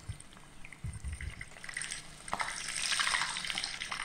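Prawn fritters deep-frying in a pot of hot oil, bubbling and crackling. After a sharp click a little over two seconds in, the crackling grows louder.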